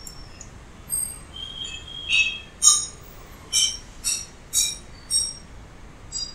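Forest birdsong playing from a nature-sounds recording: short, high chirps and whistles, about two a second, starting a second or two in.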